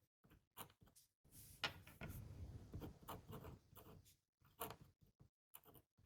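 Faint scratching of a Sailor Clear Candy fountain pen's nib writing on paper: short separate strokes, with a longer run of continuous writing from about one to four seconds in.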